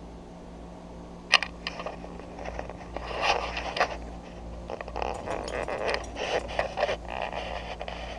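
Handling noise at an opened air-conditioner condenser unit: a sharp click about a second in, then irregular scraping and rattling.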